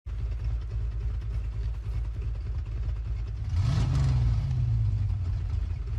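Car engine sound effect: a steady idle, then one rev just past halfway that rises in pitch and settles back.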